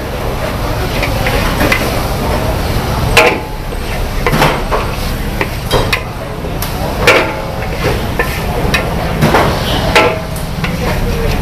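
Metal wok spatula clanking and scraping against a large iron wok while stir-frying noodles: irregular sharp ringing strikes, the loudest about three seconds in and again near seven and ten seconds.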